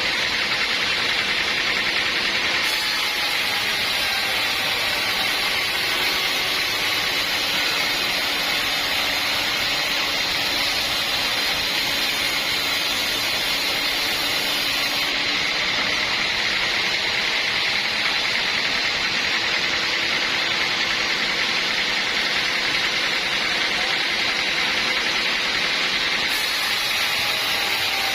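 Sawmill running with a steady, unbroken mechanical noise and no let-up throughout.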